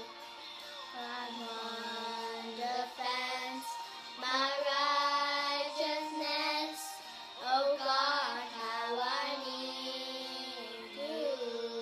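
Two children, a girl and a young boy, singing a worship song together, their sung lines rising and falling over steady held notes beneath the voices.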